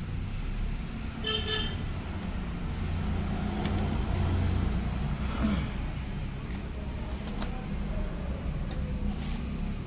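Steady low rumble of street traffic with a short vehicle horn toot about a second and a half in, and a few light clicks.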